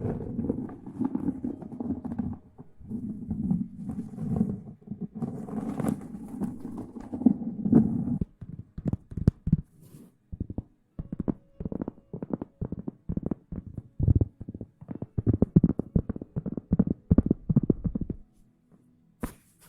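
Close-miked ASMR rustling and rubbing, a continuous dense scrubbing sound for about eight seconds, then a quick, irregular run of taps and pats for about ten seconds that stops near the end.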